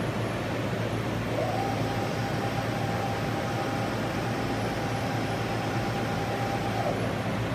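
Steady hum of factory machinery. A higher whine glides up about a second and a half in, holds level, and drops away near the end.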